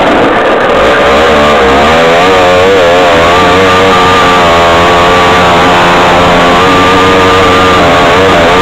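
Onboard sound of an off-road buggy's engine running hard along a dirt track, its pitch wavering up and down with the throttle. Loud and distorted on the microphone.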